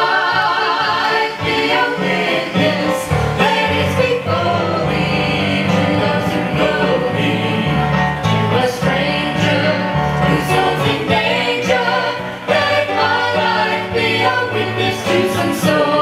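Music: singing over an instrumental accompaniment with a bass line that steps from note to note.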